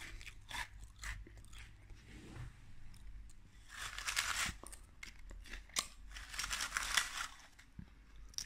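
Potato chips crunching as they are bitten and chewed, with a plastic chip bag crinkling in two stretches, about four seconds in and again around six to seven seconds.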